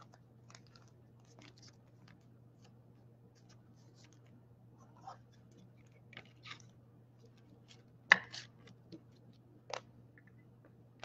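Trading cards being handled between pulls: faint scattered clicks and rustles, with a sharper click about eight seconds in and another near ten seconds, over a faint steady hum.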